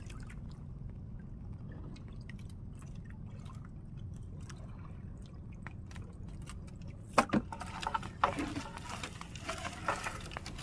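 Sea water lapping and dripping against the side of a small outrigger boat, over a steady low rumble. About seven seconds in, louder irregular splashing and dripping begin as the gill net is hauled up out of the water over the side.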